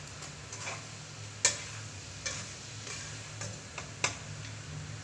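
A red spatula stirring and scraping food in a black non-stick wok over a light frying sizzle, with sharp clacks of the spatula against the pan, the loudest about a second and a half in and again near the end. A steady low hum runs underneath.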